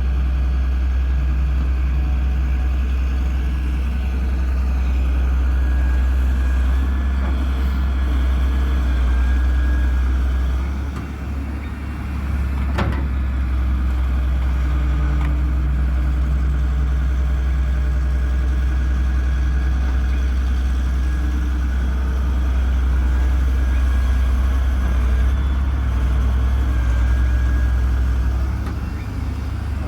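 Heavy diesel engine of earth-moving machinery running steadily, its level dipping briefly about eleven seconds in. A single sharp knock comes shortly after.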